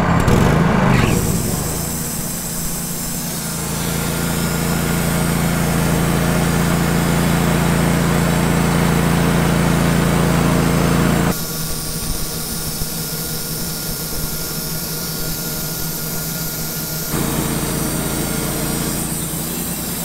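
Wood-Mizer LT15 GO bandsaw mill running on its Kohler Command PRO gas engine, the band blade sawing a southern yellow pine cant. It is a steady engine drone with blade noise above it, and it changes abruptly about 11 and 17 seconds in.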